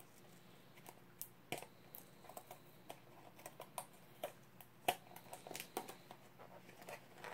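Faint, irregular clicks and crackles of a small cardboard figure box being picked open by hand, working at its sellotape, with a few louder snaps.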